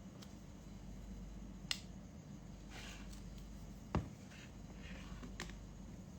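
Two sharp clicks about two seconds apart, the second louder, over a low steady hum, with faint rustling between them.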